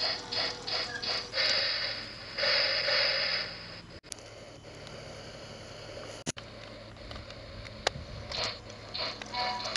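Toy Polar Express train running along its track, its small motor and wheels whirring and clicking in a quick, uneven rhythm.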